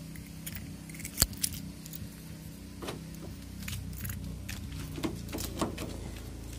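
Keys jangling and clicking in a hand, with one sharp click about a second in and lighter clicks scattered through, over a low steady hum.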